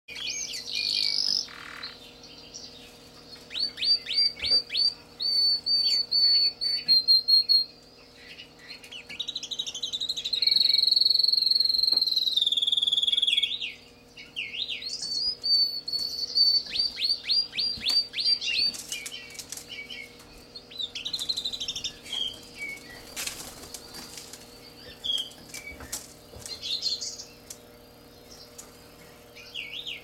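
Domestic canary singing: fast, high-pitched repeated trills in phrases, with one long unbroken rolling trill about ten seconds in. The song turns sparser and softer over the last third.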